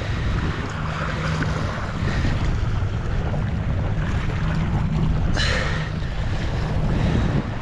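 Wind buffeting the microphone over waves washing against the rock platform, a steady low rumble. About five seconds in there is a brief scuffing noise.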